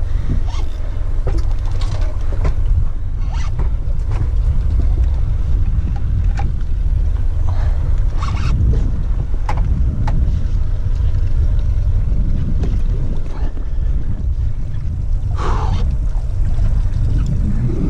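Steady low rumble of wind buffeting the camera's microphone aboard a small boat at sea, with scattered light knocks and clicks.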